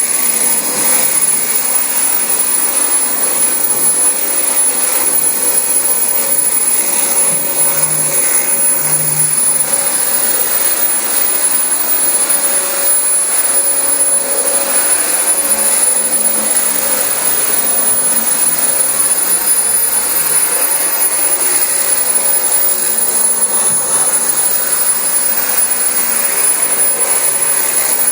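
Dyson DC25 bagless upright vacuum cleaner running steadily over carpet: a loud, even rush of air with a thin high whine.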